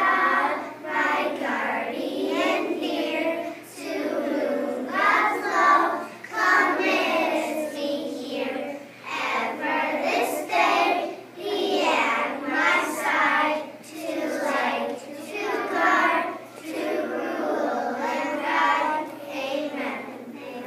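A class of young children praying aloud together in unison, in short phrases with brief pauses between them.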